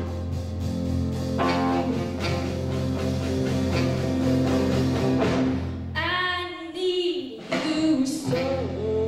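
Live blues band playing, with saxophone, electric guitar, bass guitar and drum kit; a woman's voice comes in singing over the band about six seconds in.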